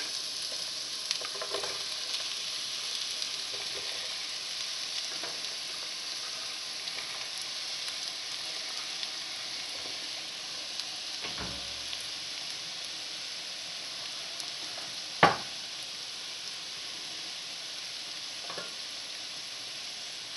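Sliced onions frying in hot vegetable oil in a deep pan: a steady high sizzle. A few sharp knocks stand out, the loudest about fifteen seconds in.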